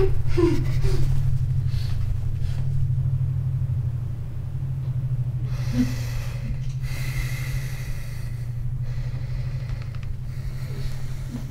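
A person breathing heavily through the nose in long, breathy huffs, about halfway through and again near the end, over a steady low droning hum. Right at the start there is a brief muffled, falling vocal sound.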